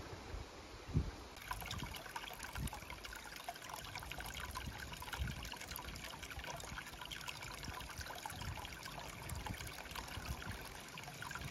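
A thin stream of water running and trickling, starting suddenly about a second and a half in and going on steadily.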